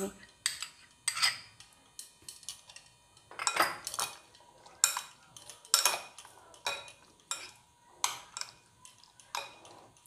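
Spoon and dishes clinking and tapping against a glass mixing bowl while beaten yogurt is added to raw chicken. The clinks are scattered, one or two a second.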